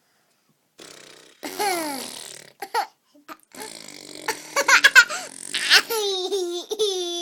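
Baby vocalizing and laughing: a high squeal that falls in pitch, a quick run of giggles, then a long held squeal near the end.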